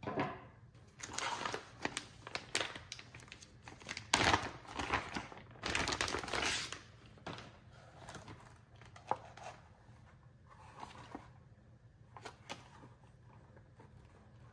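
Clear plastic bag crinkling and rustling in bursts as a leather sheath is pulled out of it, loudest about four seconds in. In the second half it gives way to quieter handling with a few sharp clicks.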